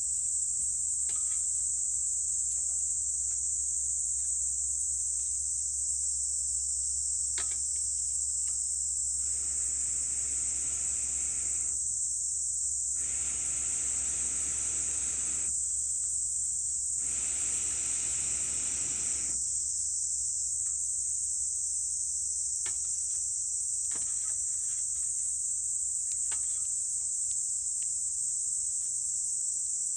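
Three long breathy rushes of air blown through a fire-blowing pipe into a campfire, each lasting two to three seconds, in the middle stretch. Scattered small crackles from the burning wood, under a steady high-pitched insect chorus.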